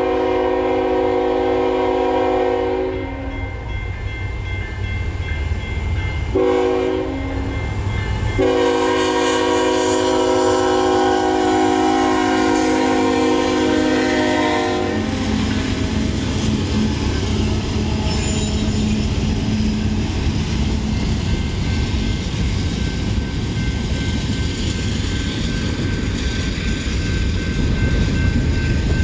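Freight-train locomotive horn sounding a chord in a crossing pattern: the end of a long blast, a short blast, then a long blast lasting about six seconds. After it stops, the CSX diesel locomotives and their train run past, with a steady rumble and wheels clacking over the rail joints.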